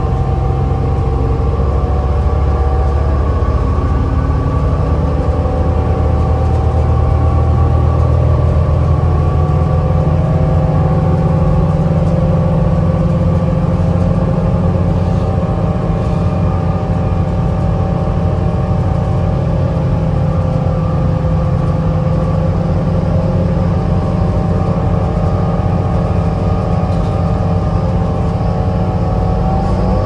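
Cabin sound of a 2010 New Flyer DE40LFA diesel-electric hybrid bus (Cummins ISL engine, Allison EP40 hybrid drive) moving at speed. A steady low rumble runs under several steady tones, and the low note rises a little about ten seconds in.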